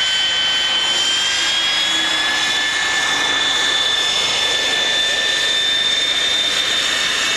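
Aero L-39 Albatros jet trainer's Ivchenko AI-25TL turbofan whining as it taxis past, over a steady rush of jet noise. The whine rises slightly in pitch about a second in, then holds steady.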